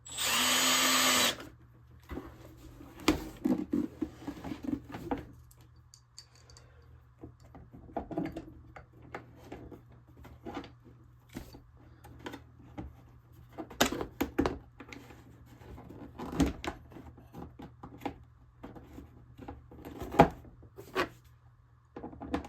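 A cordless drill-driver runs for about a second at the start, driving a Torx screw into the console, followed by scattered clicks and knocks of plastic console parts and screws being handled and fitted.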